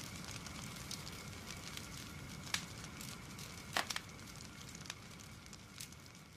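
Faint crackling hiss with scattered sharp clicks, slowly fading out.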